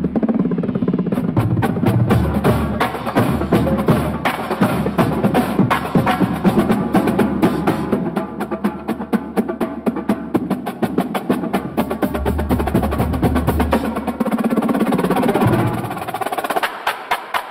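Electronic dance music with dense, rapid percussion over a steady bass line; the bass drops out about fourteen seconds in, leaving the percussion running on its own.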